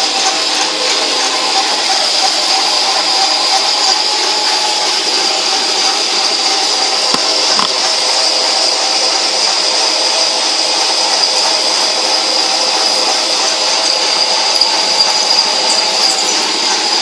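Metal lathe running steadily, turning a length of 1 1/4-inch black steel pipe, a continuous machine sound with a steady hiss and several fixed tones.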